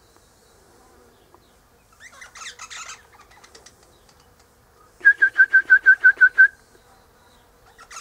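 Eastern rosella calling: a short burst of harsh chattering about two seconds in, then a quick, loud run of about nine clear piping notes on one pitch about five seconds in, with chattering starting again near the end.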